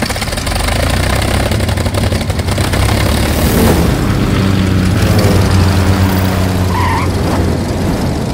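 Single-engine propeller airplane flying by, a loud, steady engine drone whose pitch shifts slightly midway.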